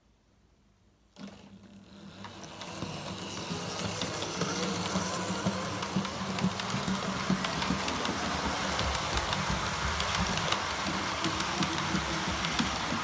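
Model train running on the layout: the locomotive's electric motor hums with a rapid clatter of small clicks from the wheels on the track. It starts about a second in, grows louder over the next few seconds, then runs steadily.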